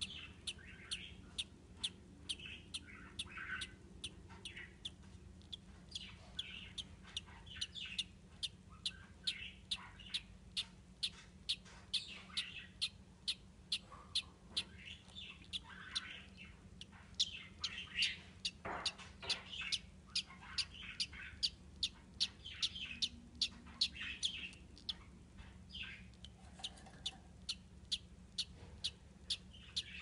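Pet budgerigars chirping and chattering: a steady run of short sharp chirps, about two or three a second, with warbling calls between.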